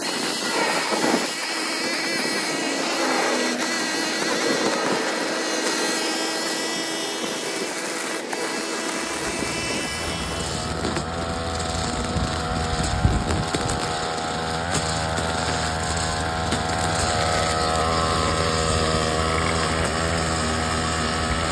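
Small gas engine of lawn-care power equipment running steadily. About nine seconds in a deeper, steady engine hum comes in and continues.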